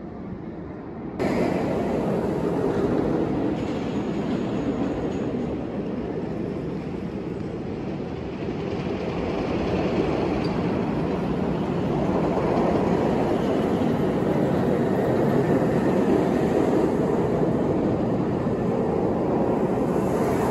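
Empty test train on Dominator, a Bolliger & Mabillard floorless steel roller coaster, running through its loops with a loud, steady roar from the wheels on the track. There are no rider screams. The roar starts suddenly about a second in and swells somewhat louder in the second half.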